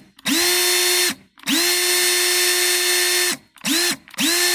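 Makita HP333D cordless drill/driver motor run in four short trigger pulls, each spinning up to a steady whine and stopping; the longest lasts nearly two seconds. It is a test run showing that the motor and trigger switch work.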